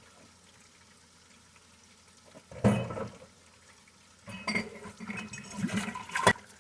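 Dishes being hand-washed in a kitchen sink: a splash of water about two and a half seconds in, then dishes and glassware clattering and knocking, with a sharp clink near the end.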